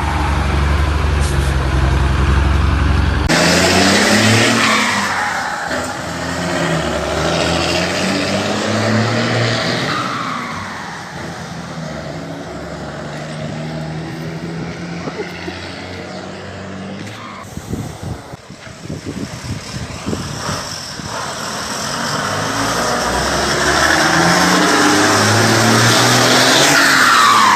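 Ford truck's turbo-diesel engine roaring as it revs up and down several times, with the turbo noise of a comb (pente) fitted in the turbocharger intake. A patch of rapid crackling or rattling comes around the middle.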